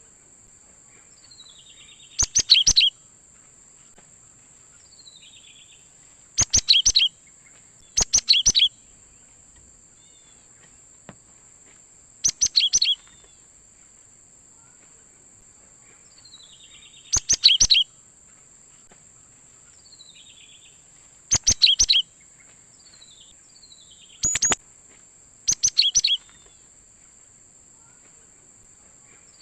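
Cinereous tit (gelatik batu) calling: short bursts of rapid, sharp notes every few seconds, some led by a faint falling whistle. A steady high-pitched hiss runs underneath.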